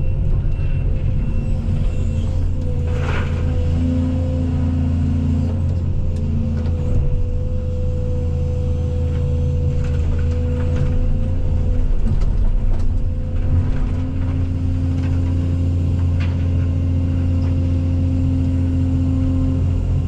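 Case CX220E excavator's diesel engine running steadily under load, a low drone with a steady high whine over it. A few knocks from the machine working cut in now and then.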